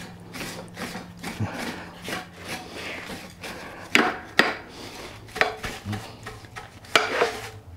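A long-handled brush scrubbing caked grass and dried mud off the top of a riding mower's cutting deck, in a run of quick scraping strokes with a few sharper knocks among them.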